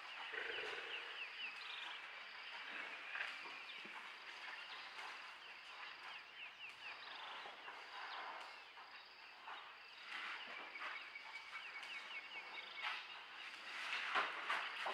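Faint morning bush ambience: several birds chirping and trilling, with a fast repeated trill about two-thirds of the way through, over a steady high insect buzz. A few soft knocks or rustles near the end.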